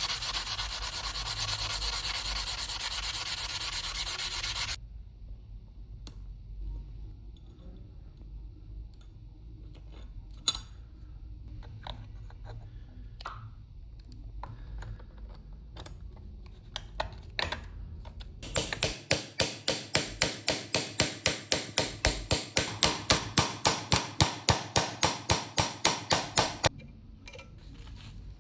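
Hand sanding with abrasive paper: a steady rasping rub that stops about five seconds in, then small clicks and taps of handling, then quick back-and-forth sanding strokes, about four a second, for some eight seconds near the end.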